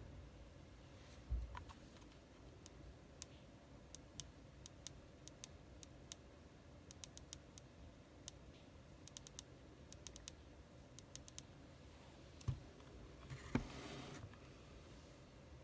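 Faint, scattered sharp clicks, with a few soft knocks about a second and a half in and again near the end.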